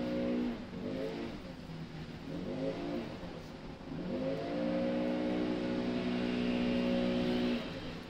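Leaf blower revving up and down with the throttle, its pitch falling and swinging back up, then held at high speed for about three seconds before dropping back near the end.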